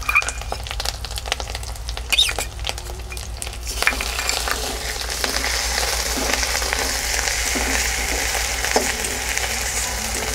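Cumin paste frying in hot mustard oil with onion and ginger-garlic paste in a kadai, a sizzle that grows louder and steadier about four seconds in. Clicks and scrapes of a spatula stirring against the pan run through it.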